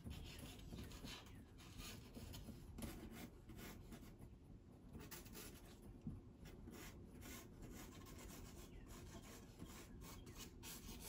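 Faint, irregular scratching of a pencil sketching light lines on sanded pastel paper.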